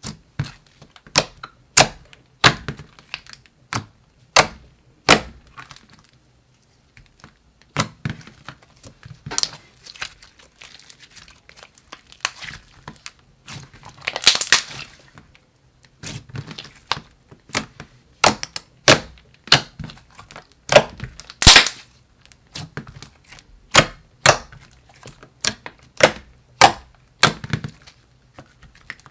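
Thick white slime worked by hand, pressed and stretched so it gives off sharp sticky clicks and pops, about one or two a second. About halfway through, a longer crackling burst comes as both palms press down into it.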